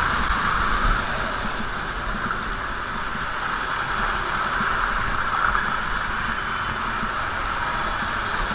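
Steady road and engine noise of a vehicle being driven over a rough off-road stretch, a constant rushing hiss over a low rumble.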